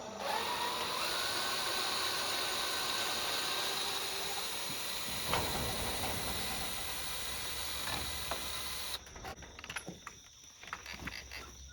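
A steady hiss that cuts off suddenly about nine seconds in, followed by a few faint knocks.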